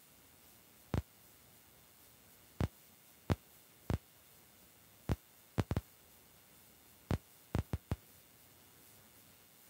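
Scattered sharp taps of storm precipitation striking the car's windshield and roof, heard from inside the cabin. About a dozen hits come at irregular spacing, some in quick clusters around the middle, over a faint steady background.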